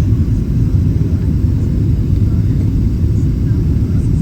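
Steady low rumble inside the cabin of a Boeing 777 airliner: engine and airflow noise.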